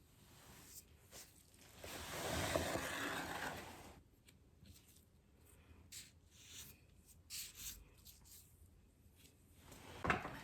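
A rough rubbing sound lasting about two seconds, then scattered light scrapes and taps: hands working caulk along the edge of the wall covering.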